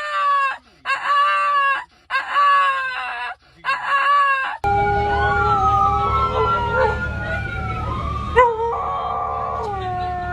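A dog howls in four short, pitched yowls as if answering back. About halfway through it switches abruptly to long, slowly rising and falling howl-like tones over a steady low rumble.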